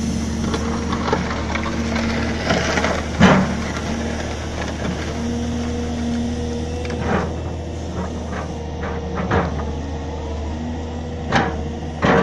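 Diesel engine of a CAT M318D wheeled excavator running steadily under hydraulic load, while its bucket pushes an overturned steel machine frame. Several sharp metal clanks and scrapes: the loudest about three seconds in, others around seven seconds and near the end.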